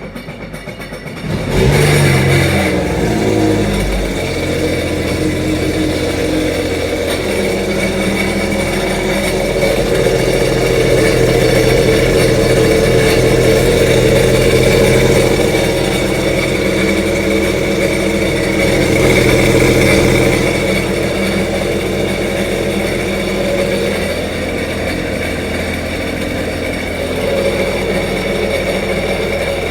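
Sea-Doo jetski engine, out of the water, catching and briefly revving, then settling into a steady idle while RV antifreeze is drawn through its cooling system from the flush port.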